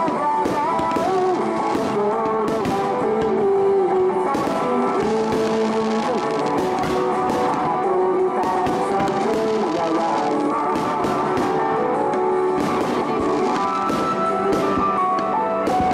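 Music plays continuously for a fireworks display while firework bursts and crackles break through again and again at irregular intervals.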